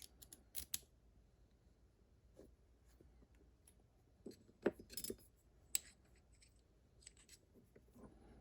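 Faint, scattered small metallic clicks and taps of a padlock and its key being handled and worked, in a few short clusters.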